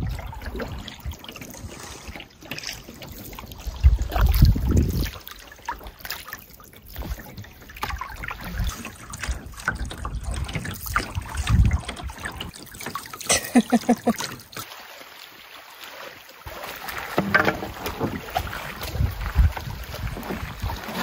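Water trickling and splashing around a canoe as it is paddled across a lake, with gusts of wind thumping on the microphone now and then.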